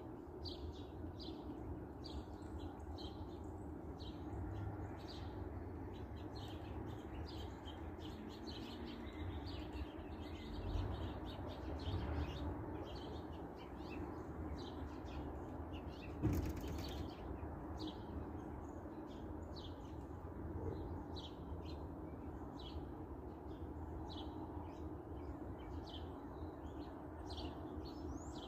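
Small birds chirping, short high chirps coming irregularly one or two at a time, over a steady low background noise. A single sharp knock sounds a little past halfway through.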